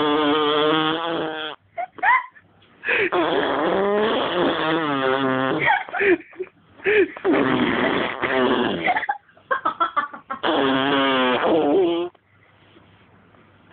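A baby blowing raspberries, buzzing her lips while using her voice, in four long runs with a wavering pitch and short sputters between them.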